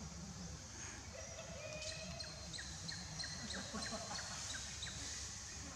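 Birds chirping and whistling in the surrounding forest: many short, high calls, some gliding down in pitch, over a low steady rumble.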